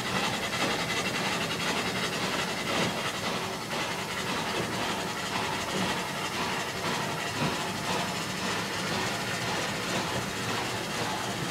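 Steam locomotive 7470 giving off a steady hiss of steam, with a few soft, irregular knocks.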